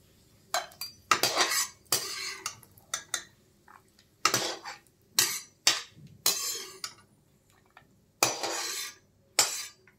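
Perforated steel skimmer clinking and scraping against a metal kadai and a small steel plate as fried cashews are scooped out of the ghee and tipped onto the plate: repeated, irregular clatters with quiet gaps between them.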